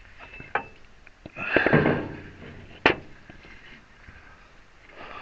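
Handling noise from working a hydraulic cylinder part into position: a light tap, a rustling scrape lasting about a second, then a sharp knock about three seconds in.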